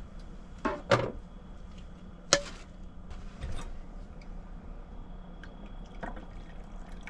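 Coffee being made: a handful of sharp knocks and clinks of a mug and kettle being handled, with some pouring or dripping of liquid, the loudest clink about two seconds in. A steady low hum runs underneath.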